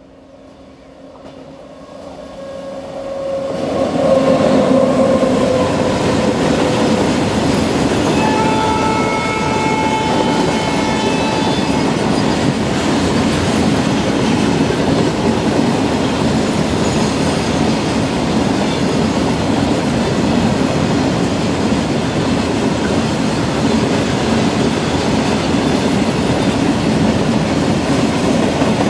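An Indian Railways WAG-9H three-phase electric freight locomotive approaches and passes, building up over the first four seconds with a whine that drops in pitch as it goes by. A long freight train's wagons then roll past steadily, with a brief high-pitched wheel squeal about eight to twelve seconds in.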